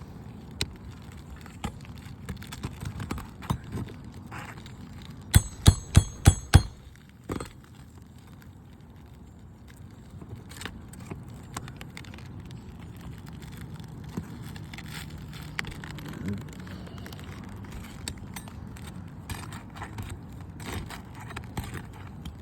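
Five quick, sharp hammer blows on metal about five seconds in, ringing briefly, amid scattered clicks and scrapes of tools working on brittle asphalt shingles.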